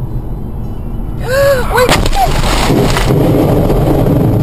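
Vehicle collision: low road rumble, then about a second in a sudden loud crash with a few short squealing tones and a sharp impact, after which a louder rumble carries on.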